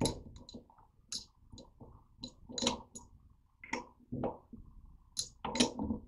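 A 7/16 wrench clicking and clinking against metal bolts as they are tightened into a proportioner's valve block, in irregular sharp strokes with a couple of louder knocks.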